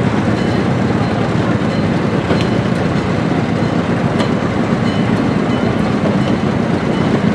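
Small narrow-gauge diesel locomotive running steadily as it hauls open passenger cars slowly along the track, with a few sharp clicks from the wheels on the rails.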